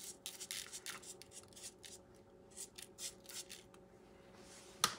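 A small spoon scraping and tapping salt off a plastic lid onto raw beef cubes: a run of light, scratchy ticks over the first two seconds, a few more a little later, then one sharper click near the end.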